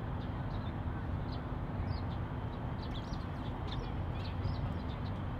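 Small birds chirping in short, irregular high notes, several a second, over a steady low background rumble with a faint hum.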